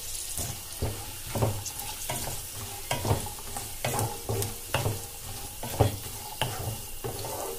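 Wooden spatula stirring and scraping dry coconut slices, peanuts and green chillies through hot oil in a nonstick kadai, with a steady sizzle under repeated strokes about one or two a second. The coconut is being lightly fried for a tempering.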